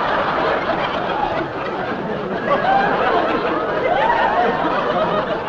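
Studio audience laughing, loud and sustained.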